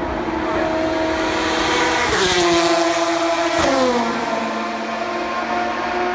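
Two endurance race cars pass one after the other, about a second and a half apart. Each engine note drops sharply in pitch as it goes by. Other cars' engines hum steadily further off.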